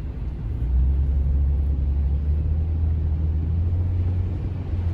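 Low drone of a car driving on the highway, engine and road rumble heard inside the cabin, growing louder about a second in and then holding steady.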